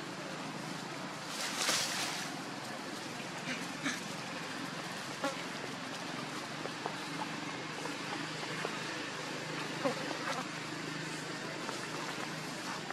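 Steady outdoor background hiss with a faint low hum, broken by a few short rustles and clicks; the loudest is a rustle lasting about half a second, about two seconds in.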